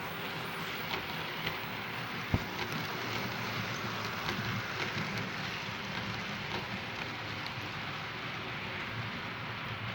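OO gauge model train running on the layout's track: a steady rumble from the locomotive's motor and wheels with scattered light clicks, and one sharper click about two and a half seconds in.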